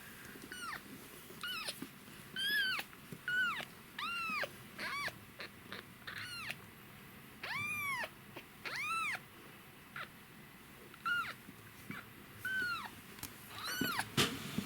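Very young kitten mewing repeatedly in short, high, thin calls, about one a second, each rising and then falling in pitch.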